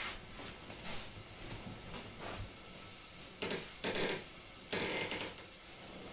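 Soft sliding footsteps of tabi-socked feet on tatami with the rustle of a hakama, growing into three louder rustling scrapes a little past halfway as the walker turns.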